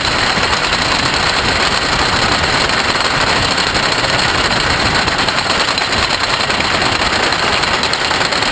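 Wooden roller coaster train being hauled up the chain lift hill, the lift running with a steady, loud mechanical clatter.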